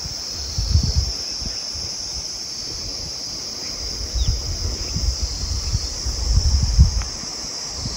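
Steady, high-pitched chorus of insects chirring, with wind buffeting the microphone in low gusts about half a second in and again from about four to seven seconds.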